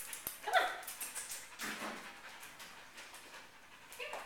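Dog whining: a short high call about half a second in and another near the end, with light clicks of its claws on the tile floor in the first second or so.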